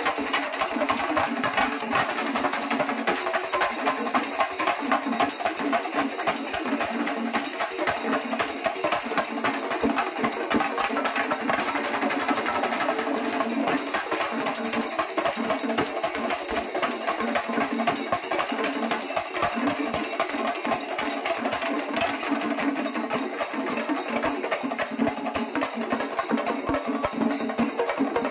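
Shinkari melam, a Kerala percussion ensemble of chenda drums with hand cymbals, playing a fast, dense, unbroken rhythm.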